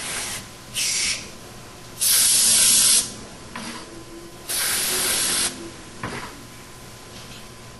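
Degreaser being sprayed onto a flatted clear-coated panel in three hissing bursts: a short one, then two lasting about a second each.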